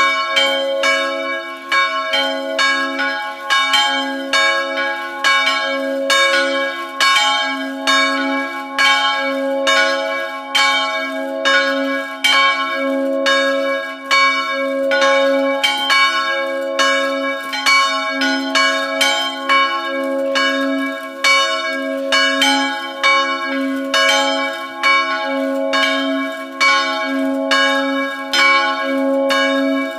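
Church bells ringing a continuous peal, with strokes about twice a second and each tone ringing on into the next.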